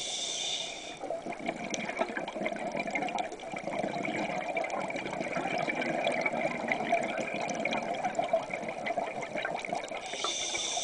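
Scuba diver breathing through a regulator underwater: a brief hiss of inhalation ending about a second in, then a long exhalation of bubbling and gurgling air, and another inhalation hiss near the end.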